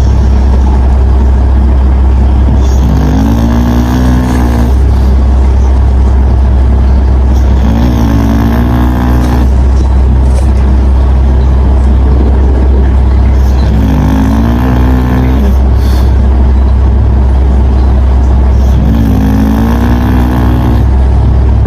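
A puppy snoring loudly: a steady low drone, with a wavering, higher-pitched snore about every five seconds, four times in all.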